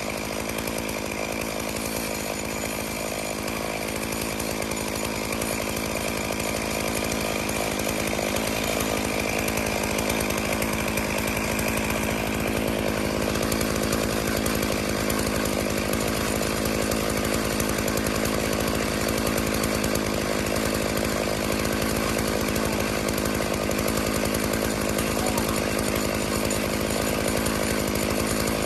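Stihl MS461 two-stroke chainsaw mounted in an Alaskan chainsaw mill, running steadily under load while ripping a cedar log lengthwise into slabs.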